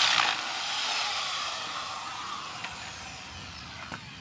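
Corded electric drill with a 1-inch wood bit, just bored into a young coconut: the trigger is let go with a knock at the start, and the motor winds down, falling in pitch and fading over the next few seconds.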